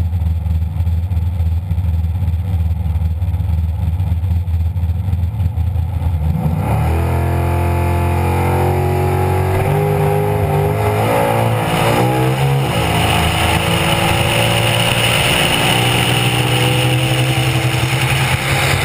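Nostalgia AMC Pro Stock drag car's V8 engine idling low and lumpy on the start line. About six seconds in it is revved hard, the pitch wavering and stepping up and down for several seconds, then held steady at high revs.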